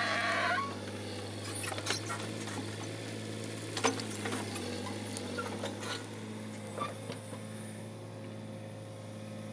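Mini excavator's diesel engine running with a steady low hum, with a few light clicks and knocks scattered through it.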